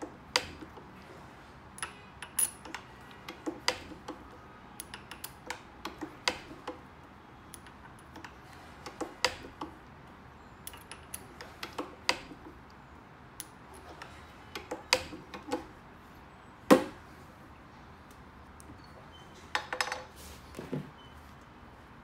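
Irregular metallic clicks and clinks of a steel pellet die being worked by hand under an arbor press, with one sharp metal knock about three-quarters of the way through and a short clatter near the end as the die is taken apart.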